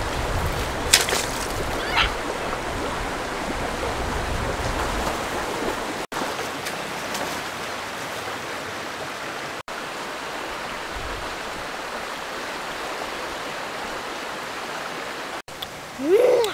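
Shallow river running fast over rocks, a steady rush of water, with a couple of sharp splashes about one and two seconds in. A short pitched call comes right at the end.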